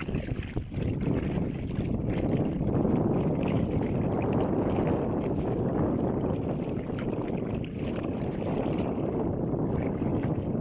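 Steady rumble of a small fishing boat under way at sea, with wind on the microphone.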